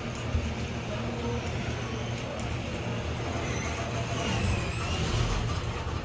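Large elevator car in motion: a steady low rumble and hum of the ride.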